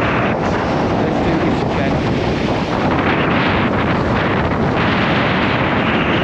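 Strong gale-force wind buffeting the microphone: a loud, steady rush of noise.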